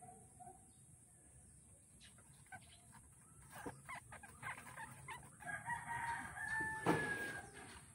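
A rooster crowing: one long held call from about five and a half seconds in, over rustling and scattered clicks, with a sharp knock near the end. A few short clucking notes at the start.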